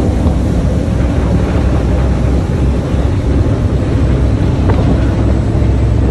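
Passenger ferry's engines running steadily under way, a constant low drone, with wind buffeting the microphone and water rushing in the wake.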